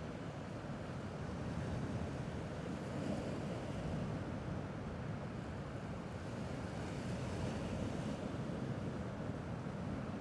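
Gentle sea waves washing against a rocky shore: a steady hiss that swells softly a couple of times.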